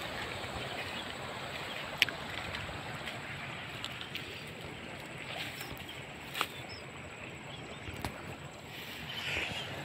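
Steady wind noise on the microphone while walking outdoors, broken by a few sharp clicks, the loudest about two seconds in.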